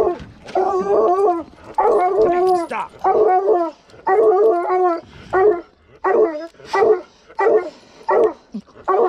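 Bear hounds bawling, more than one voice at once: long, wavering howls through the first few seconds, then shorter bawls about every two-thirds of a second. The hounds are excited while they are being leashed up to go after a bear.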